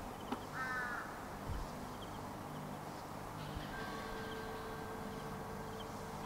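A single short, harsh bird call about half a second in, over a faint outdoor background with light ticking. From about four seconds a few steady high tones set in and hold.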